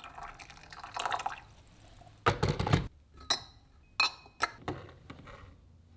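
Water poured from a kettle into a glass teapot, then a few glass clinks and light knocks as the teapot's glass lid is handled and set on, some ringing briefly.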